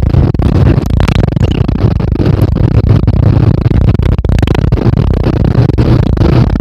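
Loud, steady rumble of a moving vehicle's engine and tyres heard from inside the cabin, with frequent rattles and knocks from the body and window.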